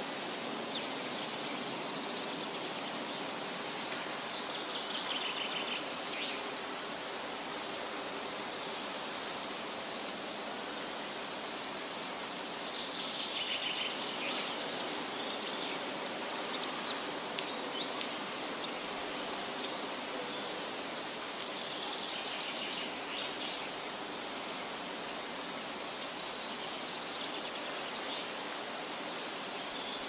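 Outdoor forest ambience: a steady hiss with bursts of high trilling and chirping calls, busiest around the middle.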